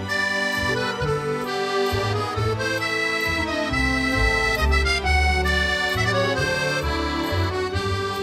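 Background music carried by an accordion-like melody over a bass line that changes note every second or so.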